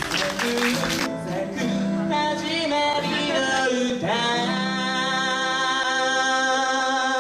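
A song with a singing voice over instruments, ending on one long held note from about four seconds in.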